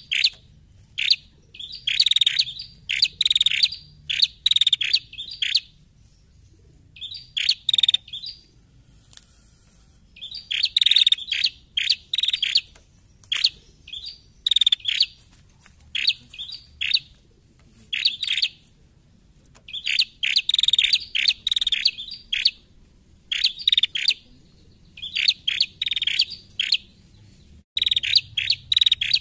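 Female prenjak (ashy tailorbird) calling in quick bursts of sharp, high chirps. The bursts are separated by short pauses, with a lull of a few seconds about a quarter of the way in.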